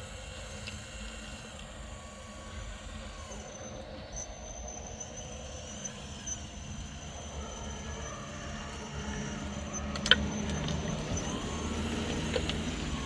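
Large hydraulic excavator's diesel engine running steadily under work, growing louder in the last few seconds, with a single sharp knock about ten seconds in.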